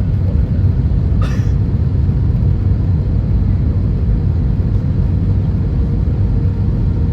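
Steady low rumble of an Airbus A320-232's cabin in flight, the engines and airflow heard from a passenger seat. A short sharp hiss or rattle stands out about a second in, and a faint steady hum comes in over the second half.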